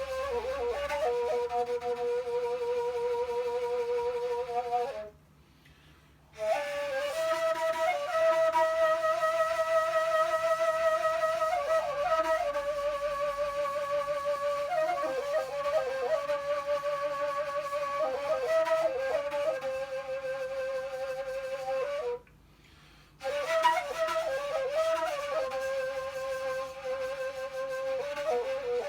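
Kaval, the Turkish end-blown flute, playing an improvised melody: long held notes joined by quick ornamental runs and trills. The playing stops briefly twice, about 5 s in and again about 22 s in, before picking up again.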